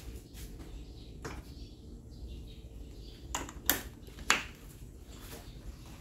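Kawashuki KS-515 15-watt mini ceiling fan starting up from a standstill and spinning up, over a steady low hum. There are a few sharp clicks, one about a second in and three between three and a half and four and a half seconds in; the two near four seconds are the loudest.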